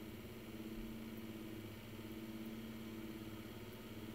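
Dead air on a NOAA Weather Radio broadcast: a steady low hum with faint hiss between messages.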